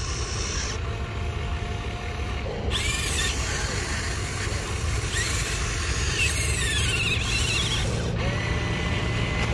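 Electric motors of a model RC excavator whining, the pitch sweeping up and down as the boom and bucket move, over a steady low rumble.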